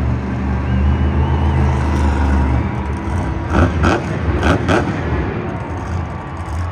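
Son-Uva Digger monster truck's supercharged V8 engine running loud and revving as the truck drives onto a dirt mound. A cluster of four or so sharp bangs comes between about three and a half and five seconds in.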